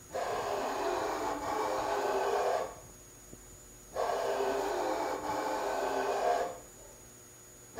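CNC-converted milling machine's Y-axis drive motor and ball screw moving the table in two runs of about two and a half seconds each, with a pause of over a second between them, making a steady whine. The back-and-forth moves are a backlash and repeatability test of the new ball-screw conversion.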